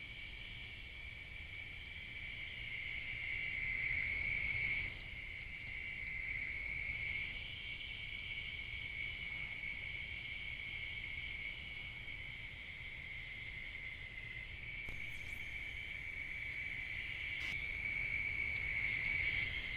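Night insect chorus, a steady high-pitched buzz over a low background hiss, changing slightly in level about five and fifteen seconds in.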